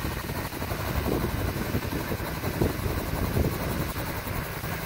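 Small helicopter idling on the ground, its engine and rotor making a steady drone.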